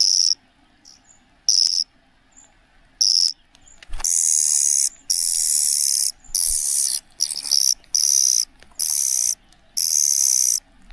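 Cuckoo chick giving high, hissy begging calls in repeated bursts. The calls come short and spaced out at first, then longer and in quick succession from about four seconds in.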